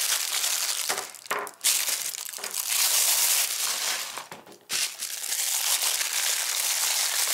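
Thin plastic wrapping crinkling and rustling as it is handled and pulled off small plastic toy parts, with two brief pauses.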